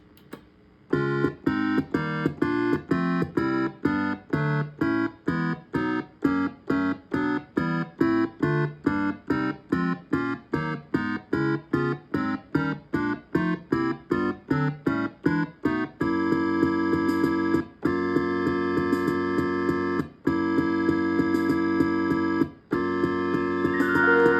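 Suzuki Omnichord OM-84 electronic chord instrument playing. Quick repeated organ-like chords come at about two a second, then give way after about 16 s to held chords that change every couple of seconds. The repaired unit, which had given no sound, is working again.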